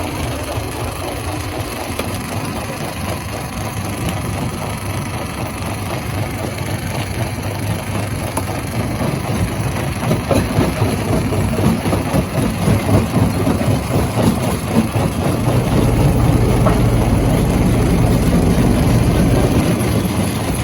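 Stone crusher running while crushing rock: a steady machine drone under dense rattling and knocking that grows louder and choppier about halfway through, with a deeper rumble setting in near the end.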